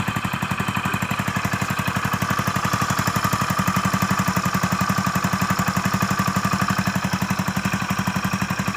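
Hero Passion Pro motorcycle's single-cylinder four-stroke engine idling with an even, rapid beat, a little louder in the middle. The engine has just been fully rebuilt with new piston rings and valves, and it is running smoothly.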